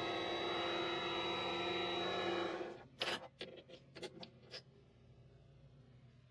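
Vevor mini lathe running steadily with a high whine over a low hum, stopping abruptly about two and a half seconds in; a few light clicks and knocks follow.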